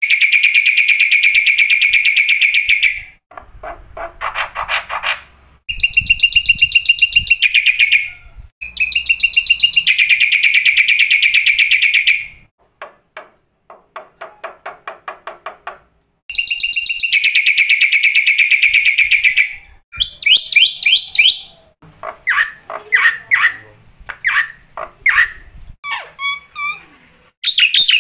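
Black-winged myna (jalak putih) singing: loud, rapid trills lasting a few seconds each, broken by runs of dry clicking chatter and a short pause, then shorter sharp call notes in the second half.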